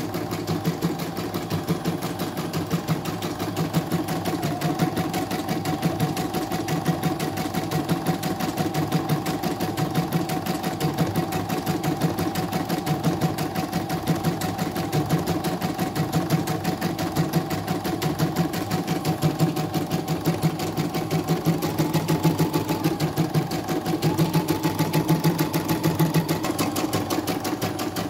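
CNY portable computerized embroidery machine stitching a design: the needle strikes in a rapid, even rhythm over a steady motor hum. It is running a test stitch-out after repair for untidy embroidery, going smoothly without the thread breaking.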